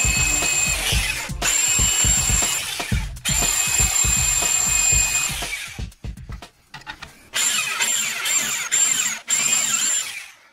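A drill bit boring into a steel knife blank, with a steady high-pitched squeal from a cheap bit cutting the metal. It stops briefly a couple of times and pauses for about a second past the middle before squealing again. Background music with a beat plays underneath.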